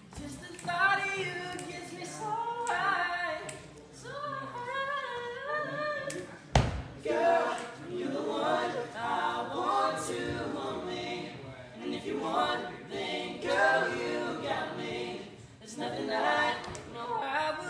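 Group of young male voices singing a cappella in harmony, with one sharp thump about six and a half seconds in.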